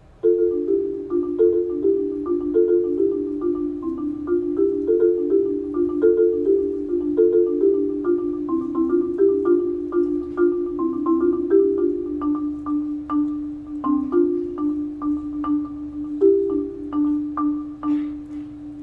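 Solo marimba, struck with mallets, playing a fast, steady stream of notes in a repeating pattern. It comes in suddenly after a quiet pause, with a higher line of quick notes over a lower repeating figure.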